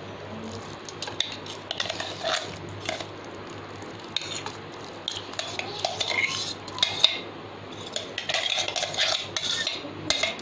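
Metal spoon scraping and clinking against a pan in irregular strokes as ground paneer is added to milk and stirred.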